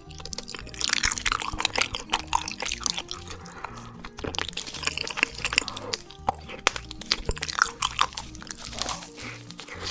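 Close-up wet chewing, sucking and lip-smacking of spicy braised beef feet, dense clicky mouth sounds with short pauses, over background music.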